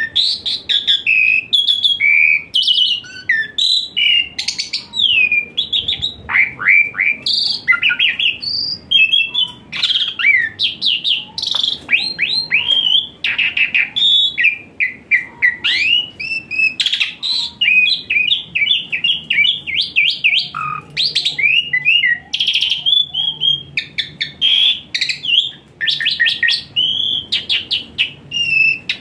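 Jalak suren (Asian pied starling) singing a long, unbroken, varied song: quick chattering runs, clear whistles and fast sweeping notes with no real pause.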